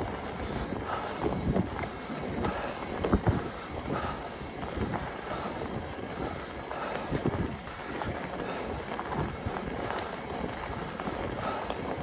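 Wind buffeting the microphone in irregular low gusts over a steady rushing hiss.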